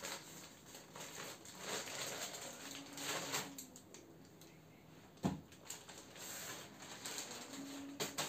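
Faint rustling and crinkling of a plastic packaging bag as it is snipped open with scissors and unwrapped, with one sharp click about five seconds in.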